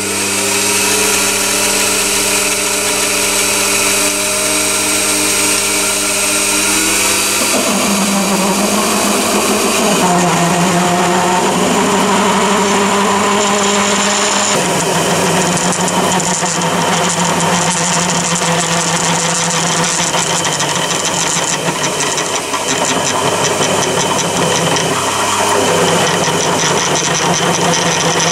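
Mini lathe running while a large HSS twist drill in the tailstock drills into a metal billet turning in the chuck. The motor's steady whine drops in pitch about seven seconds in as the drill bites and takes load, then rough vibration sets in as the big drill picks up the smaller hole already drilled, which is normal.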